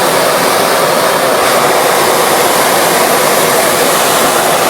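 Hot air balloon's propane burner firing: a loud, steady roar.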